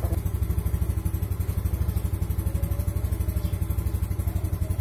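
Small motorcycle engine idling steadily, a fast even pulse of about twelve beats a second.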